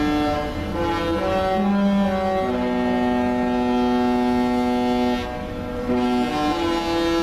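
Cruise ship Royal Princess's musical horn playing a tune, one sustained note after another, with a long low note in the middle.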